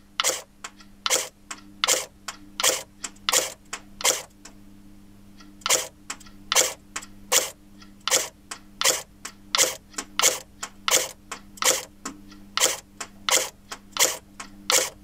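HK MP5 airsoft replica firing single shots in quick succession, about two to three sharp cracks a second, with one short pause about four seconds in.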